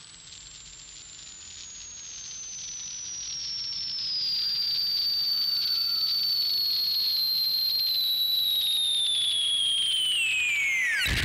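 Electronic soundtrack: a high, pure whistle-like tone gliding slowly downward in pitch and growing louder over the first few seconds, with a fainter, higher tone joining about four seconds in. Near the end both tones dive steeply in pitch.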